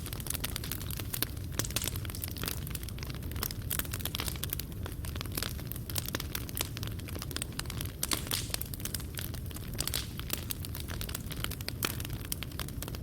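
Fireplace fire crackling: dense, irregular small pops and snaps from the burning coals over a steady low rumble of the flames.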